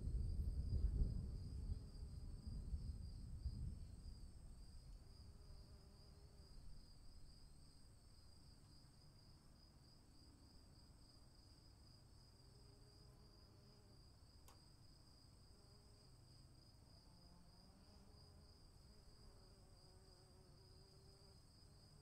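A low rumble of thunder, loudest in the first second or two and dying away over the next several seconds, over a steady high chirring of crickets that goes on throughout.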